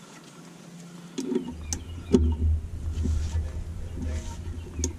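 Socket and ratchet on a brake caliper's banjo bolt: a few sharp metal clicks and knocks as the bolt is snugged down, the loudest a little over two seconds in. About a second and a half in, a steady low rumble starts underneath and keeps going.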